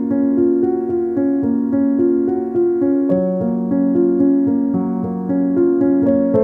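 Background instrumental music: a melody of sustained notes, changing about twice a second.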